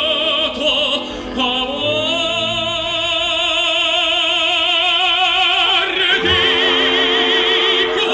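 Operatic singing with a wide vibrato over orchestral music; about six seconds in, it gives way to a long steady held note.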